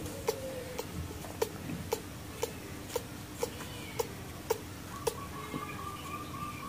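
A clock ticking steadily, about two ticks a second, over a faint room hum. From about five seconds in, a thin, drawn-out high call sounds faintly under the ticks.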